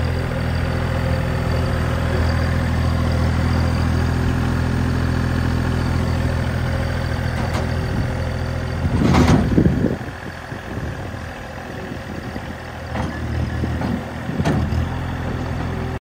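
Bobcat S70 skid steer's small three-cylinder diesel engine running steadily as the machine moves. About nine seconds in comes a short, louder rush of noise, after which the engine runs quieter, with a couple of sharp clanks near the end.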